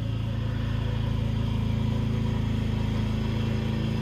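Ride-on lawn mower engine running steadily, an even hum.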